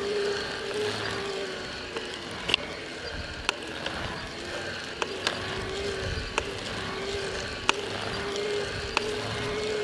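Shimano EP801 e-bike mid-drive motor humming under pedalling, with a sharp crack about once per crank revolution, roughly every second and a quarter, as the right crank arm passes the one o'clock position. The owner links the knock to increased axial play in the motor.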